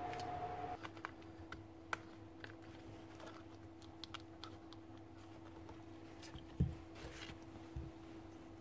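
Light scattered clicks and taps of plastic parts and wire connectors as the opened Makita cordless drill housing and its switch wiring are handled. One louder thump comes about two-thirds of the way through. A faint steady hum sits underneath.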